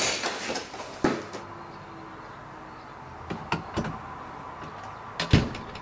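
A door being shut and locked: a series of knocks and clicks, with the loudest thump about five seconds in.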